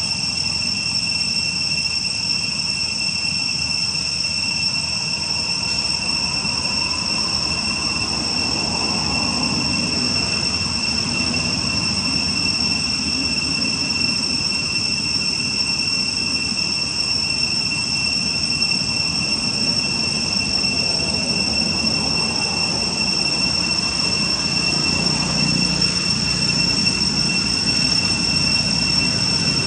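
Steady high-pitched insect drone, one unbroken tone with a fainter overtone above it, over a low background rumble.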